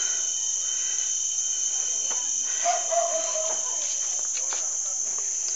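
Steady, high-pitched drone of forest insects, unbroken throughout.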